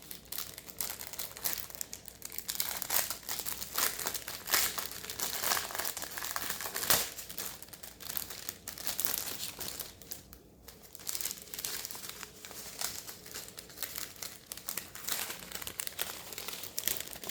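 Small plastic bags of diamond painting drills crinkling and rustling as they are handled and sorted, with a short lull about ten seconds in.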